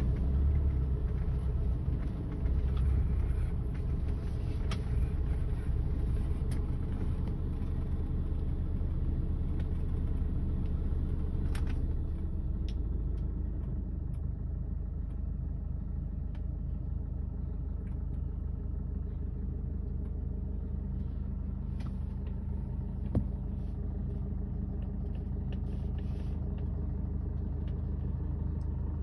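Vehicle engine running steadily with a low rumble, with a few faint clicks and one sharper click near the end.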